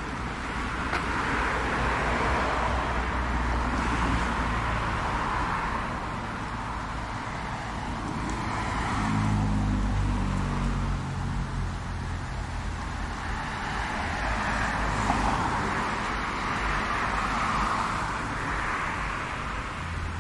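Road traffic: cars passing on the street one after another, their tyre and engine noise swelling and fading several times, with a lower engine hum from a passing vehicle about nine seconds in.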